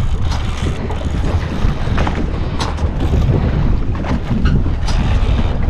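Wind buffeting the microphone over open water, a steady rumbling noise, with a few short sharp clicks scattered through it.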